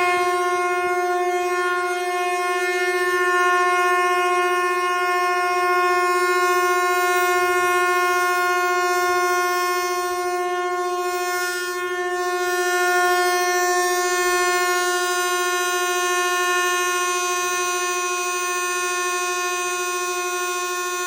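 Horn of a Lastochka ES2G electric multiple unit sounding one long, unbroken blast at a steady pitch: the Victory Day horn salute.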